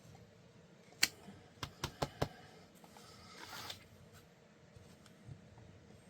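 A quick run of sharp taps and clicks, about five in just over a second, from a stamp block being tapped on an ink pad and pressed onto paper, followed by a brief soft rustle.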